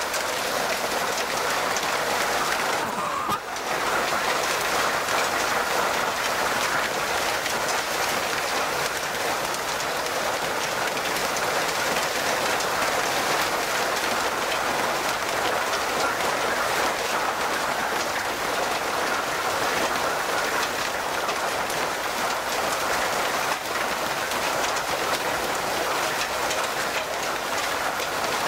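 Severe hailstorm: hail and rain pelting the ground and a wooden table in a dense, steady downpour, with a brief lull about three seconds in.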